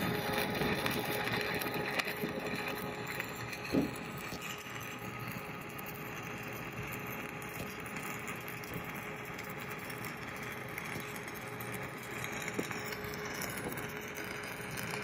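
Stick (SMAW) welding arc from a 3/32-inch 7018 electrode at 90 amps, giving a steady, even crackling hiss as the first fill pass is weaved onto a bevelled plate joint. A single brief louder pop about four seconds in.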